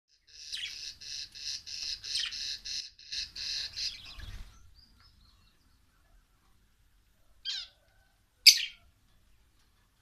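Caged budgerigars and cockatiels calling: a quick run of repeated calls, about four a second, for the first four seconds or so, then two short, sharp squawks about a second apart near the end, the second the loudest.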